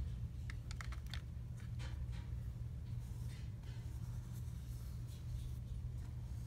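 Watercolour brush knocking and dabbing in a plastic paint tray: a quick run of light clicks about half a second in, then faint brush strokes on paper. A steady low hum runs underneath.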